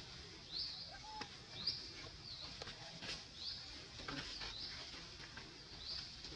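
A bird calling in the forest: a run of short, high chirps, about one a second, over a steady low background.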